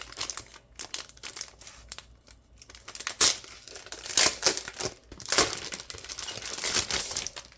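Crinkling and rustling as a Season's Greetings calendar and its packaging are handled, in irregular bursts that grow louder in the second half.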